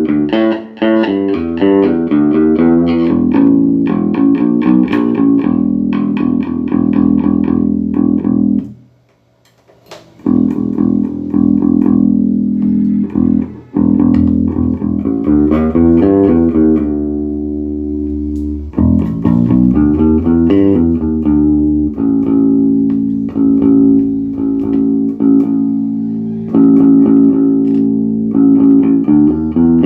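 Electric bass guitar played through a Peavey MaxBass 110 combo amp, picking repeated notes and short riffs, with a pause of about a second around nine seconds in. The amp is working cleanly after its repair.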